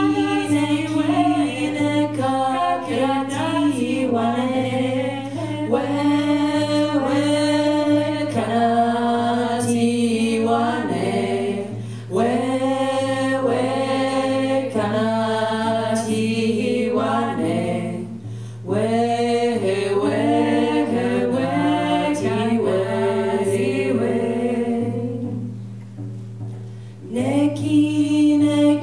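Women's voices singing together, unaccompanied, in long sustained phrases with short breaths about twelve and eighteen seconds in and a softer passage near the end. A low steady hum runs underneath.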